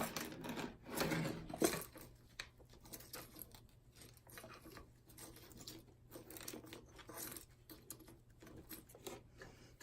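Hands rummaging through small plastic toy figures: faint, scattered clicks and rustles, with one sharper click a little under two seconds in.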